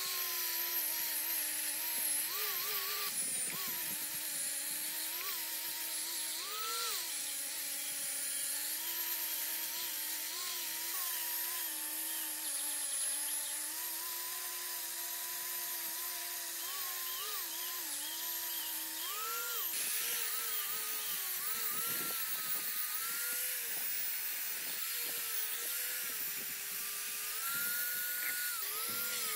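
Electric angle grinder running against rusty metal pump housing, grinding and brushing off rust. Its motor whine keeps sagging under pressure and rising again when it is eased off, over a steady high hiss from the abrasive on the metal.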